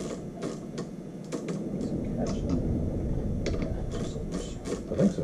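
Ratchet of a torque wrench set to 180 clicking as it is worked back and forth to tighten the nut on an alternator's drive gear, in a run of irregular clicks.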